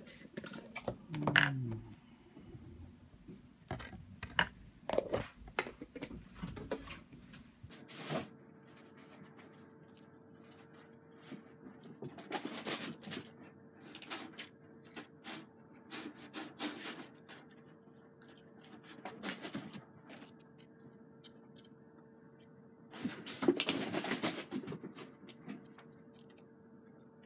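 Scattered rustling and scratching against fabric and cardboard as newborn kittens squirm in a lined box, in short clusters with quiet between. From about eight seconds in a faint steady hum runs underneath.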